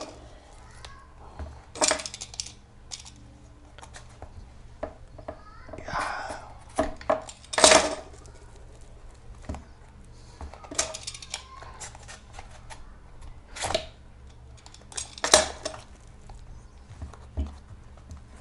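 An Adidas Boost foam midsole, with its hard plastic part, being bent and prised apart by hand along a partial cut: irregular sharp crunches, creaks and clicks, the loudest about 8 s and 15 s in.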